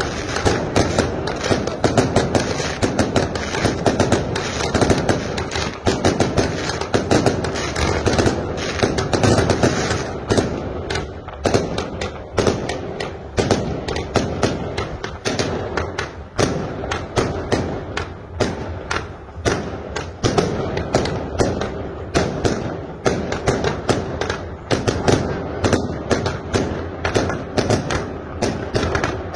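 Fireworks going off in a rapid, unbroken string of bangs and crackles from aerial bursts overhead. The bangs are densest for the first third, then come as separate sharp cracks several times a second.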